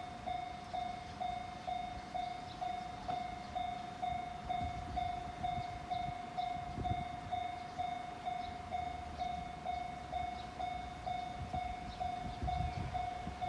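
Japanese railway level-crossing warning bell ringing, an electronic clang repeating steadily about twice a second, with a low rumble underneath from a passing train.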